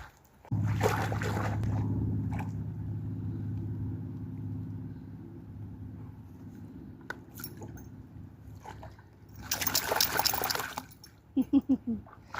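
A steady low hum of several tones, like a motor, starts suddenly about half a second in and slowly fades over about ten seconds. Near the end comes a short noisy burst.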